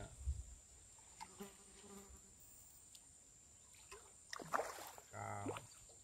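Faint, steady high-pitched insect drone, with a few soft knocks and, near the end, a brief voice sound.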